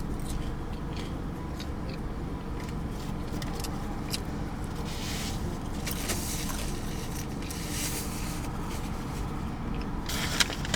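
Steady low hum of a car cabin with the engine idling, with scattered small clicks and two short stretches of rustling, about five seconds in and near the end.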